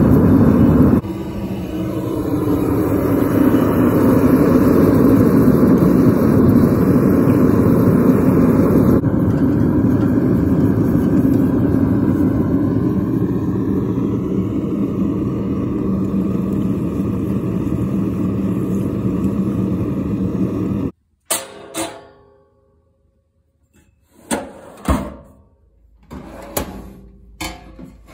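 Propane forge burner running with a loud, steady rushing noise. It cuts off suddenly, followed by a few sharp metallic clinks of a blade set on an oven rack.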